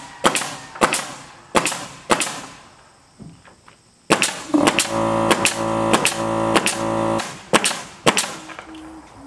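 Pneumatic nail gun driving nails into wooden ceiling boards: about ten sharp shots in two runs, each with a short ring. From about four seconds to seven seconds a steady motor drone, the air compressor running, sounds under the shots.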